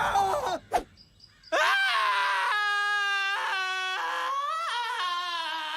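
A cartoon character's long, drawn-out scream, held on steady pitches that step up and down. It starts about a second and a half in, after a short click and a brief hush.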